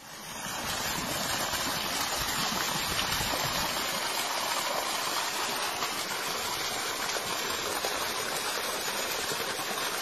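Water gushing out of the trunk of an old mulberry tree and splashing into the flooded ground at its base: a steady rushing, like a small stream or waterfall.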